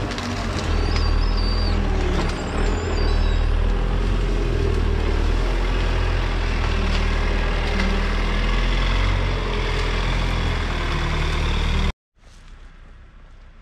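Manitou telehandler's diesel engine running steadily as the machine works along a hedgerow. About 12 seconds in it stops abruptly, leaving only faint outdoor sound.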